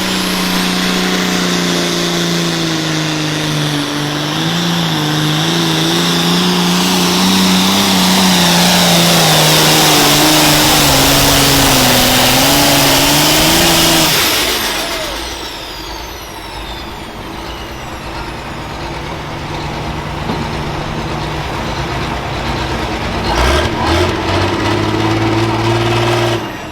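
Super farm pulling tractor's diesel engine running flat out under load, its pitch wavering as it pulls, with a high turbo whine over it. About fourteen seconds in, the throttle comes off: the engine drops sharply in level and pitch and the whine falls away. The engine then idles, with a couple of short revs near the end.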